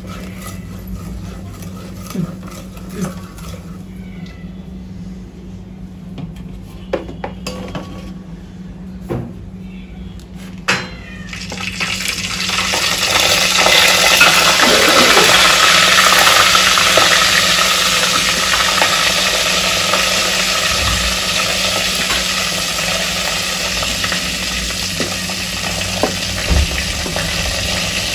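A wooden spoon clicks and scrapes in an aluminium pot of hot ghee. About twelve seconds in, chopped cashews and almonds go into the ghee, and a loud, steady sizzle of nuts frying takes over and slowly eases off.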